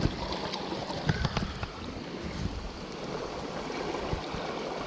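Mountain stream running as a steady rush of water, with a few light clicks and knocks near the start, about a second in, and again near the end.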